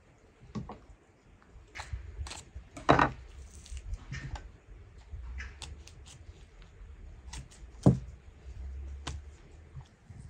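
Kitchen knife cutting and trimming raw lamb shanks on a wooden cutting board: scattered clicks and taps of the blade and meat against the board, with two sharper knocks about three and eight seconds in.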